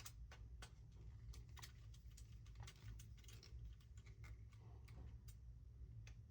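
Faint, irregular small clicks and ticks of a hand driver tightening small screws into the plastic cross braces of a 3D-printed RC snowmobile skid.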